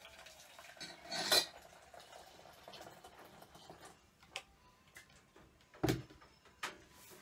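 Boiling water poured from a stainless electric kettle into an enamel pot, faint and steady, with a metal clink about a second in. Near the end come a few clicks and a louder knock as the kettle is set back down on its base.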